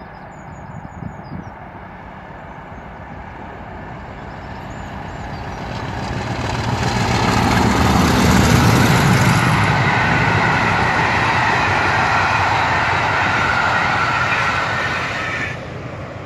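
English Electric Class 50 diesel locomotive hauling a rake of coaches passes at speed. Its engine's low hum swells to a peak about eight seconds in, then the rushing wheel-and-rail noise of the coaches goes on for several seconds. The noise drops off sharply near the end as the train clears.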